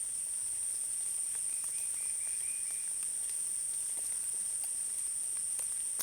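Light drizzle pattering through a forest canopy as scattered soft drop ticks, over a steady high-pitched insect drone. A little over a second in, a short run of about six quick repeated high notes sounds from a calling animal.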